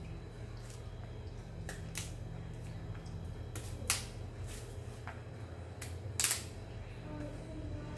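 About half a dozen short, sharp knocks or snaps at irregular intervals, the loudest about four and six seconds in, over a steady low hum.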